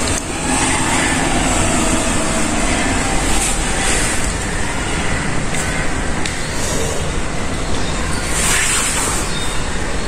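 A steady, loud rumbling noise with no clear pitch or rhythm.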